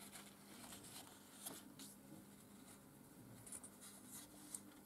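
Near silence: a few faint rustles and light taps of paper card being handled and slid on a cutting mat, over a faint steady low hum.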